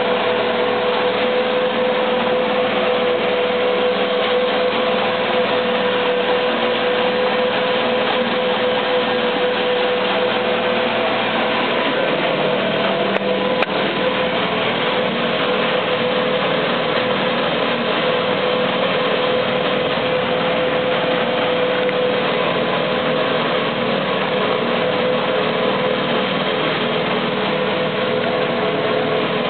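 A 48-volt electric paddlewheel drive running steadily, a constant whine over the churn of the paddles in the water, heard from inside the boat's cabin.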